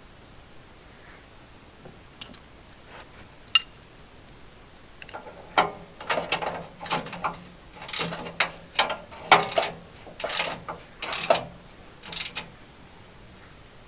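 Ratchet wrench clicking in short strokes, about one to two a second, as bolts on the steel track sections of a Wood-Mizer LT15 sawmill bed are tightened. A single sharp metal click comes a few seconds before the strokes begin.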